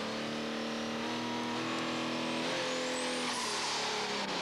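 Multi-engine Ford pulling tractor with four turbo engines running hard under load during a pull, a steady drone. About two and a half seconds in, the pitch steps up slightly and a faint high whine rises to a peak near the end.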